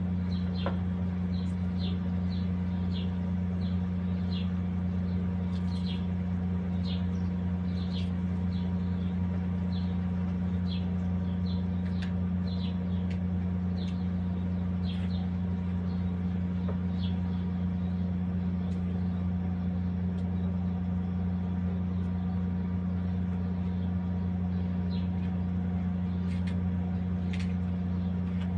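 A steady low machine hum, with small birds chirping over it in short, quick falling calls, irregularly about once or twice a second.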